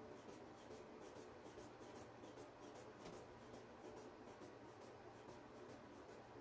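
Faint, evenly spaced soft clicks, about two or three a second, from the rubber hand bulb of a manual blood pressure cuff being squeezed to inflate it.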